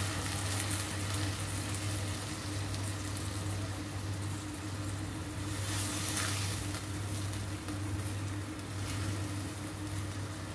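Pork frying in a non-stick wok, sizzling as water is poured in, then stirred with a silicone spatula, with a louder hiss about six seconds in. A steady low hum runs underneath.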